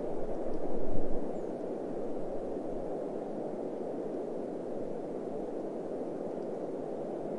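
Steady wind ambience, an even low rushing with a louder swell about a second in.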